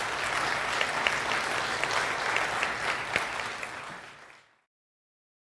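Audience applauding, a dense patter of clapping that fades about four seconds in and then cuts off abruptly into silence.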